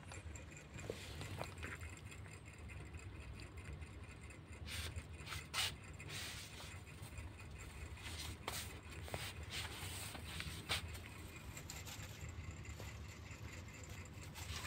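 Faint scraping and rubbing against a plastic basket and a kitten's fur, with a few sharp clicks, over a low steady hum.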